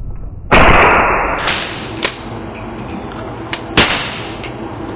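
Suppressed Smith & Wesson Shield 9mm pistol firing supersonic 124-grain ammunition, slowed down in slow motion. A deep boom about half a second in dies away over about a second, and a few sharp cracks follow, the strongest near the end.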